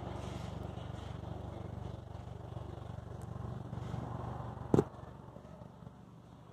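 A motor's steady low rumble, with one sharp knock about five seconds in, after which the rumble falls away.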